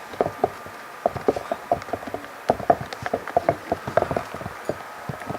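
Glue and paint being stirred in a bowl for slime: a quick, irregular run of wet clicks and taps, several a second.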